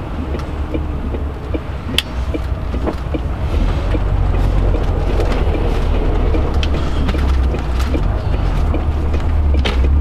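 MAN TGX 580 truck's engine pulling hard under load, heard from inside the cab as a deep steady drone that swells louder about four seconds in, with scattered sharp clicks and taps over it.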